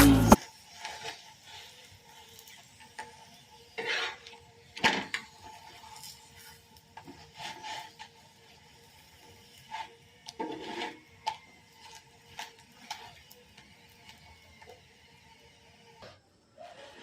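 Kitchen utensils and dishes being handled: scattered clicks, knocks and scrapes, a few louder ones around four to five seconds in and again around ten seconds, over a faint steady hum.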